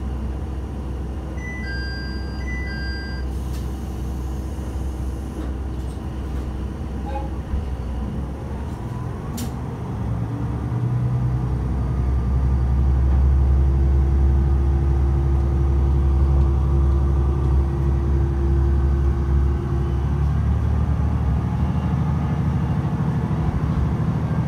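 Diesel engine of a Tsugaru-21 railcar heard from inside the cabin, idling and then revving up about ten seconds in as the railcar pulls away. There are a few short beeps near the start and a single click about nine seconds in.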